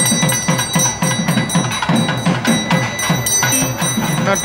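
Devotional music between sung verses: a drum beating a steady pattern of about four strokes a second, each stroke dropping in pitch, over steady high ringing tones.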